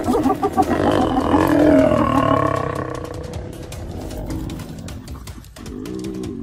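Lions snarling and growling, a rapid pulsing snarl that swells into a loud growl over the first three seconds, then fades.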